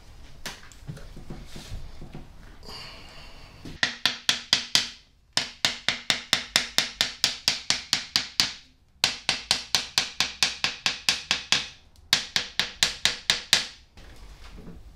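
Rapid light hammer taps on a Besson trumpet's brass bell during dent work, about six a second in four runs with short pauses between them, each tap ringing briefly.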